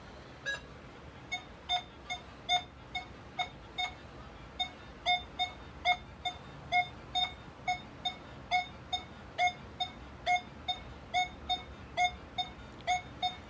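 Nokta Makro Legend metal detector in multi-frequency mode beeping on rusty steel bolts raised 1.5 inches: a run of short beeps, about two or three a second, mostly at the same mid pitch. It sounds off on each pass of the coil in both directions, where it usually hits only one way.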